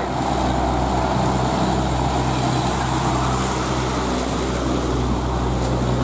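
A Mitsubishi heavy truck's diesel engine running steadily as the loaded truck drives past, with road noise.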